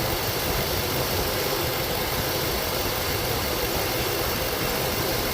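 2002 Chevy Tahoe's V8 engine idling steadily and evenly. It is running as it should after its broken, animal-chewed wiring was repaired, with no check engine light.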